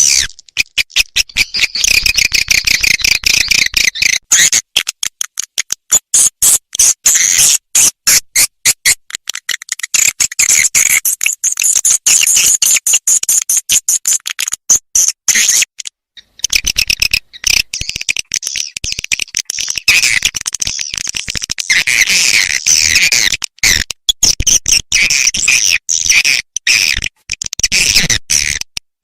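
Recorded swiftlet lure call for a swiftlet house: rapid high chirping twitters and clicks in dense runs, with brief breaks, the longest about halfway through. It is a flight-path call, played to draw passing swiftlets toward the house.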